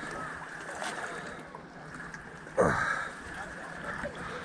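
Small waves lapping and sloshing against the rocks at the water's edge, with one sudden louder slosh about two and a half seconds in.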